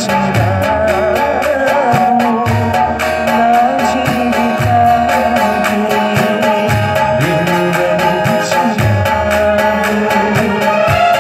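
A man singing a Telugu Christian devotional song through a microphone, with musical accompaniment and a steady drum beat.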